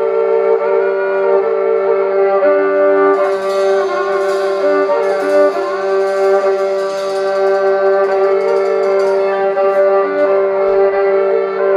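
Amplified violin playing sustained, droning notes over steady held tones, with a drum kit's cymbals shimmering in from about three seconds in until near the end.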